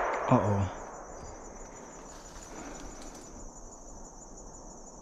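The echo of a close shotgun blast dies away through the woods in the first moment, then steady high-pitched insect chirring.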